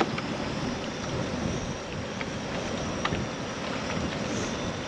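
Steady wind rushing on the microphone, with a few faint clicks.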